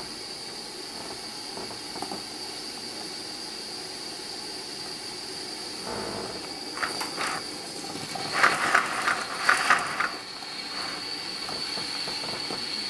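Aster live-steam BR 52 model locomotive hissing steadily under steam, then, about two-thirds of the way through, a few short clusters of sharp spitting steam puffs as the cylinders first take steam and the engine begins to run.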